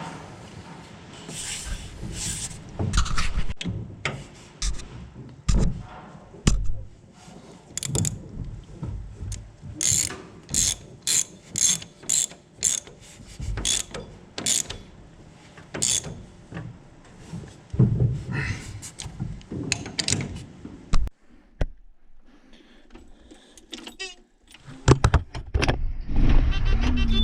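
Hand grease gun being pumped into a corn head gearbox, filling it with corn head grease from the top: a run of sharp metallic clicks and clanks, often about two a second. Near the end a steady low hum begins.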